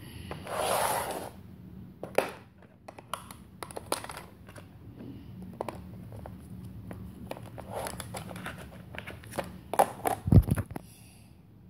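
Small school supplies being put away into a plastic supply box: a paper rustle at the start, then scattered light clicks of pens and a notebook against plastic, and a louder knock about ten seconds in.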